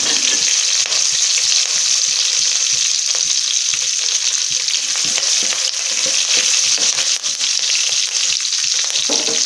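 Curry leaves, dried red chilli pieces and fennel seeds frying in hot coconut oil: a steady loud sizzle thick with fast crackles.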